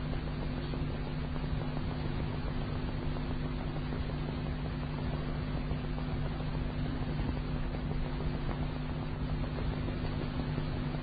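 Steady hiss with a low, even hum underneath: the background noise of an old archival recording of Quran recitation, heard in a pause between verses.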